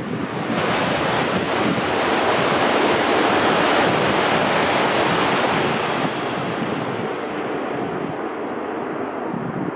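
Coupled E6 and E5 series Shinkansen train passing at high speed just out of a tunnel: a loud rushing noise that sets in sharply about half a second in, holds for several seconds and eases off after about six seconds.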